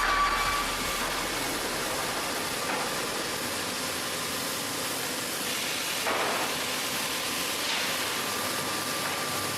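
Steady machinery noise with a hiss.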